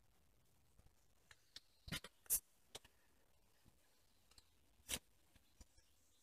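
Near silence broken by a few scattered sharp clicks and scrapes, the loudest a short cluster about two seconds in and another single click about five seconds in.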